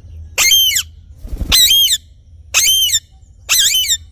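A parrot giving four loud, harsh squawking calls about one a second, each short and strongly pitched. There is a low thump just before the second call.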